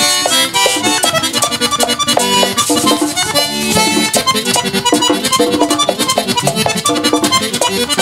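Live merengue típico band playing an instrumental passage: a button accordion leads with quick runs over electric bass, tambora drum and a steady fast scraping güira.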